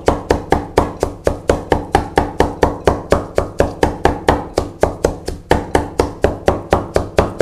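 Steel cleaver rapidly mincing a meat mixture with herb leaves on a wooden cutting board: even chopping strokes at about five a second.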